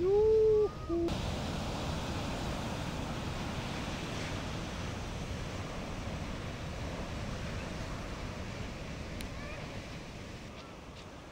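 A person's short, loud rising hoot right at the start, with a second brief call just after, then steady surf noise from breaking waves with some wind on the microphone.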